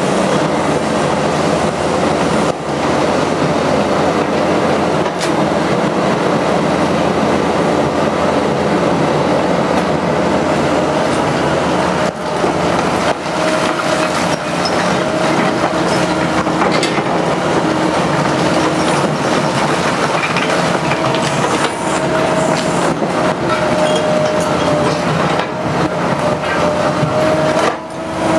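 Liebherr R 944 C crawler excavator working a rubble pile: the diesel engine and hydraulics run hard and loud while the bucket scrapes and clatters through broken brick and concrete, with a whining tone that comes and goes in the second half.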